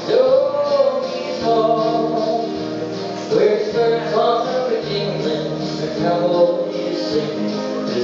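Man singing a country song into a karaoke microphone, holding long notes that slide up and down, over a backing track with guitar.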